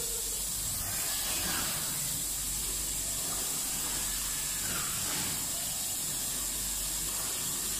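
CO2 laser cutting machine cutting a 10 mm MDF sheet, with a steady hiss of blowing air from the machine.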